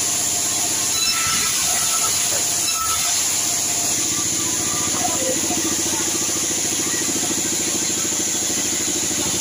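Band sawmill running steadily, its drive engine giving a constant low hum; about four seconds in the engine note grows fuller and stronger.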